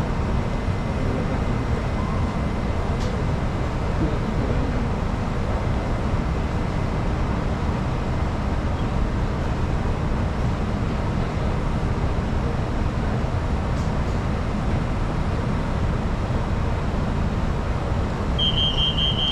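Steady low rumble and hum of an MRT train standing at a station platform with its doors open. Near the end a rapid high-pitched beeping starts: the train's door-closing warning.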